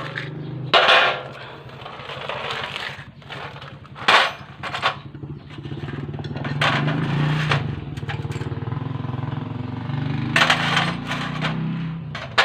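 Sharp metal clanks, about half a dozen, as tools and parts are handled around a partly assembled single-cylinder motorcycle engine, over a steady low engine hum that swells somewhat in the second half.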